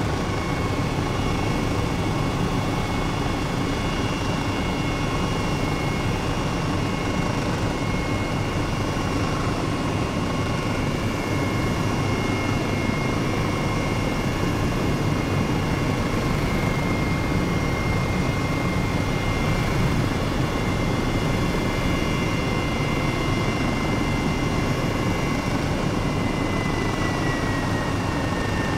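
Helicopter in flight: a steady turbine and rotor drone with a few thin, high whining tones, one of which dips slightly in pitch near the end.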